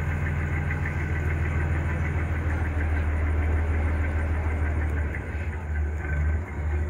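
Tour boat's engine running with a steady low drone, its loudness dipping briefly a few times near the end.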